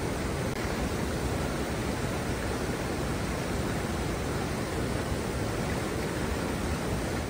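Steady, even rush of water pouring over a wide, low rock-ledge waterfall.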